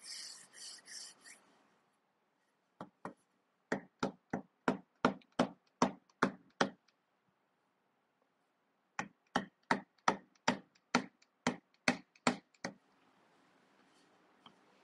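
Wooden rolling pin beating pie dough flat on a wooden board: a brief rolling rub, then two runs of sharp knocks, about three a second, with a pause of a couple of seconds between them.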